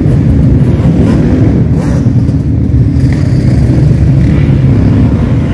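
Loud engines of sport quad bikes and dirt bikes riding past in a group: a dense, steady low exhaust rumble.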